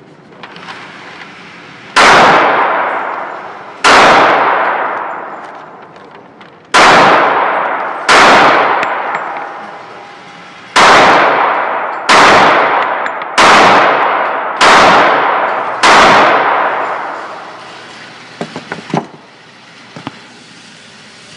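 Nine gunshots fired one at a time, one to three seconds apart, each followed by a long echo off the concrete walls of an indoor firing range. A few faint clicks follow near the end.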